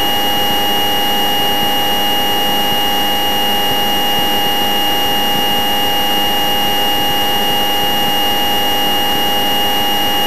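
Steady light-aircraft cockpit noise, the engine running, heard through the intercom feed as an even hiss with a constant high electrical whine.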